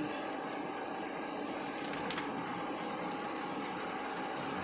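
Steady road noise heard inside a car's cabin while driving on a rain-soaked road: tyres hissing on the wet surface.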